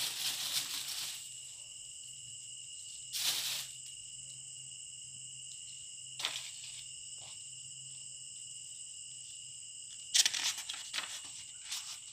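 Rustling of a plastic carrier bag and book pages as leaves are handled, in short bursts at the start, about 3 and 6 seconds in, and again near the end. Behind it runs a steady high-pitched cricket trill.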